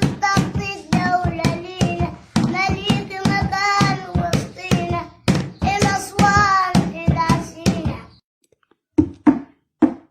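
A young boy singing an Egyptian Arabic song, kept in time by hand percussion: regular sharp hand strikes about two to three a second. The singing stops about 8 seconds in, and the hand beat starts again on its own a second later.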